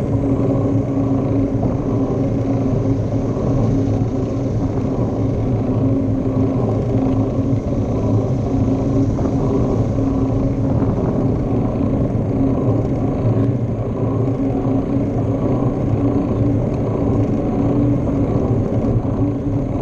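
Steady rumble of a bicycle rolling along a paved street, heard from a handlebar-mounted action camera: tyre and wind noise with a constant low hum underneath.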